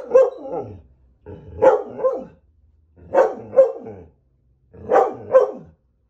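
Siberian husky vocalizing loudly: four pitched two-part calls, each about a second long and ending in a falling glide, spaced about a second and a half apart.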